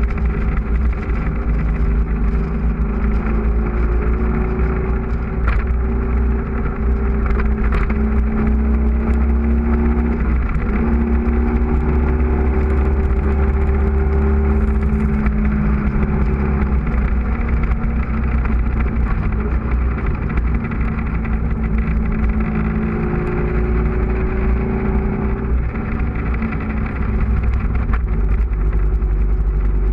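Onboard sound of a motorcycle at speed on a race track: the engine runs hard, its note climbing in pitch through several long accelerations. A heavy low rumble of wind buffeting on the camera lies under it throughout.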